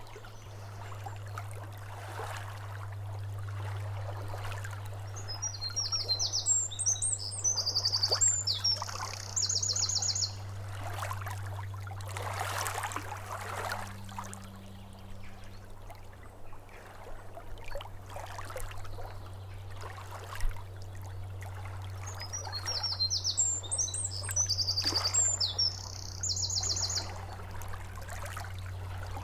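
Small waves lapping at a lakeshore, swelling and easing, over a steady low hum. A songbird sings two phrases, one about five seconds in and one about twenty-three seconds in, each ending in a rapid trill.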